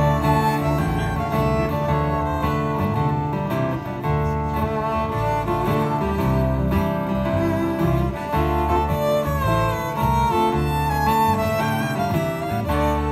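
Live string band playing an instrumental break between sung verses: a fiddle takes the lead over strummed acoustic guitars.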